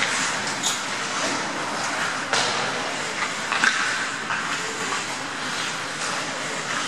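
Ice hockey play: skate blades scraping the ice in a steady hiss, with a few sharp clicks of sticks and puck, the clearest about two and a half and three and a half seconds in.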